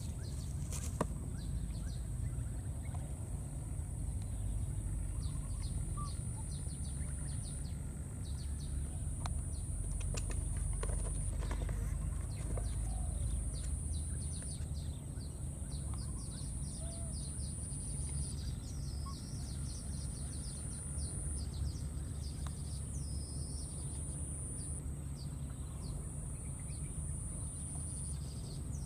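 Outdoor natural ambience: a high, steady insect buzz that repeats in phrases of about three seconds, with scattered bird chirps and a low rumble underneath.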